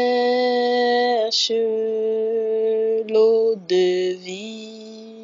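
A woman's voice singing long held notes of a slow French worship song, with short breaks between notes and trailing off near the end.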